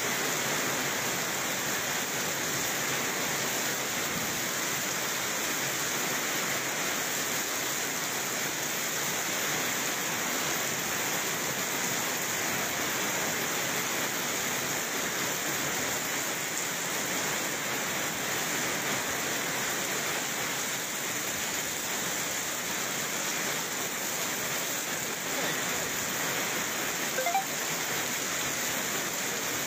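Heavy downpour of rain, a steady dense hiss of water falling on street and cars; a single sharp tap near the end.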